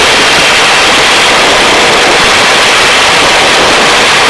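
Helicopter hovering, its engine and rotor noise heard as a steady, loud hiss with no beat.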